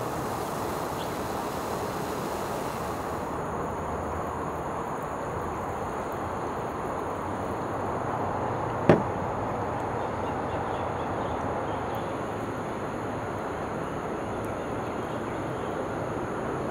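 Steady outdoor background noise, a low rushing sound, with a higher hiss that drops away about three seconds in and one sharp click about nine seconds in.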